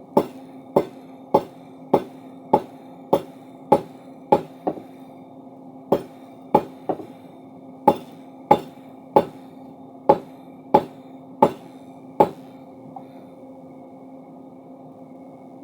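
Hammer blows on steel being forged into a crowbar, about one and a half strikes a second with a short pause near the middle. The blows stop about three seconds before the end. A steady machine hum runs underneath.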